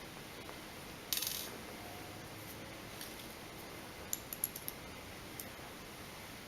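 Small screwdriver backing out the tiny screws of a Galaxy Nexus phone's inner frame: faint light metallic clicks and clinks, with a short scrape about a second in and a quick cluster of ticks around four seconds in.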